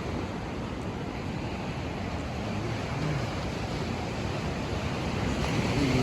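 Steady wash of sea surf on the shore, with a rush of wind across the microphone.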